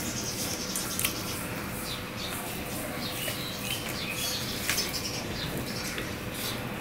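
Fingers mixing rice and curry on a steel plate: soft wet squelching and small squeaks, with two sharp clicks of fingers against the plate, over a low steady hum.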